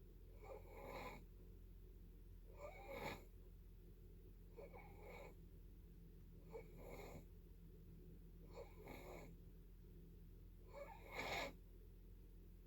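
Faint snoring: six short breaths, about one every two seconds, the last one the loudest.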